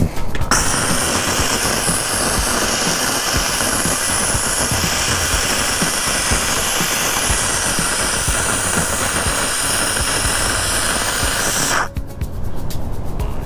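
Handheld steam gun hissing steadily as it blows steam onto an old vinyl decal on a camper's side to loosen it for removal. The hiss starts about half a second in and cuts off suddenly near the end.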